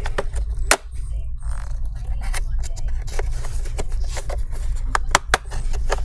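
Prying tool worked along the seam of an Acer Nitro V 15 laptop's plastic back cover, giving irregular sharp clicks and snaps as the cover's clips pop loose, over a steady low hum.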